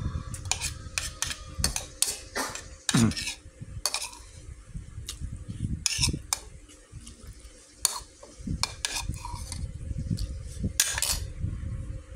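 Metal spoon clinking and scraping against a bowl in irregular strokes as it is scraped clean, with low thumps between.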